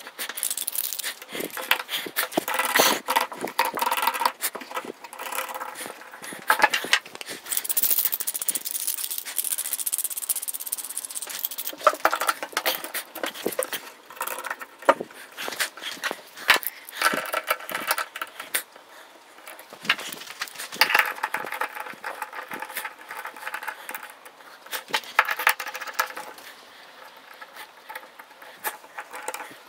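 Sped-up handling of metal clamps and stand rods on a wooden table: rapid, irregular rattling, clinking and scraping as a background support is put together.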